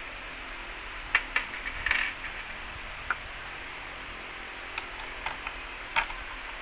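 Light clicks and knocks of a plastic and metal children's tricycle being handled and assembled as its front wheel and fork are fitted into the frame. The knocks come scattered, with a louder cluster about two seconds in, over a steady hiss.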